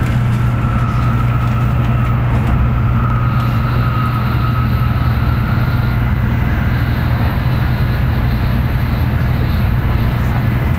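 Tokaido Shinkansen train running, heard from inside the passenger cabin: a steady low rumble, with a faint high whine over the first half.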